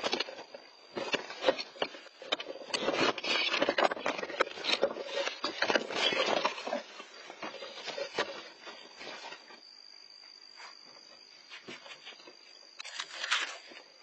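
Raccoon raiding a wooden nest box: irregular scraping, knocking and rustling of claws on the wood and in the nesting material. It is busiest for the first nine seconds, quietens, then comes one short scuffle near the end.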